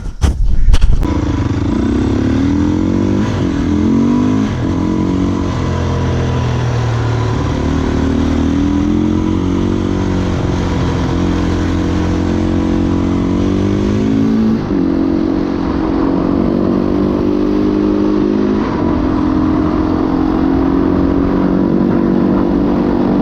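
Husqvarna SMR 510's single-cylinder four-stroke engine running, with a few short throttle blips that raise and drop its pitch. It runs on a newly fitted CNC intake manifold feeding its Keihin FCR 41 carburettor.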